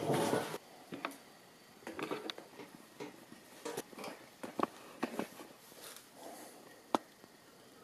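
Scattered close-up handling noises: short rustles, light knocks and clicks of plastic parts and hands, with one sharp click near the end.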